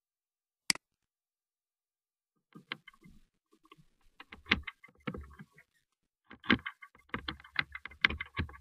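A single sharp click about a second in, then irregular taps, clicks and knocks with a low rumble, growing busier toward the end: handling noise on a microphone.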